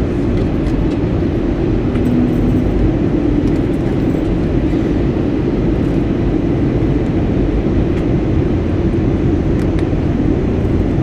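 Steady roar inside the cabin of an Airbus A320neo airliner in flight, heard from a window seat beside the engine: engine and airflow noise during the descent. A brief low hum shows about two seconds in.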